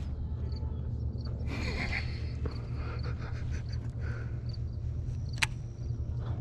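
A steady low motor hum, with a single sharp click about five and a half seconds in.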